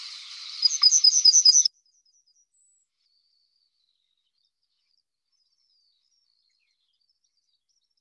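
Yellowhammer song played from a recording: a quick series of about seven repeated high, thin notes, growing louder over a hiss, that cuts off abruptly under two seconds in. Only faint scattered high notes follow.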